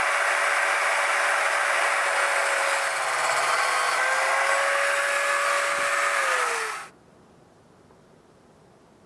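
Electric power tool running on a piece of steel, a loud hissing noise over a steady motor whine, for about seven seconds. It then shuts off, and the whine falls as the motor winds down.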